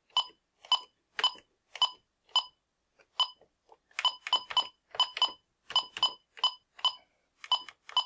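Bosch B930 alarm keypad beeping once for each key press as a DNS name is typed letter by letter, about twenty short beeps. They come about two a second at first, then quicker and in clusters from about four seconds in.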